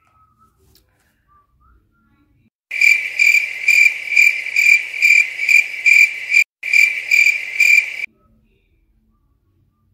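Cricket chirping: a loud, high chirp repeating about two and a half times a second. It starts suddenly about three seconds in, breaks once briefly and cuts off abruptly about eight seconds in.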